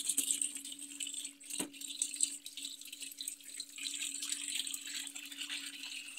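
Water from a hose pipe running and splashing into the empty plastic tub of a washing machine, with a steady low hum underneath.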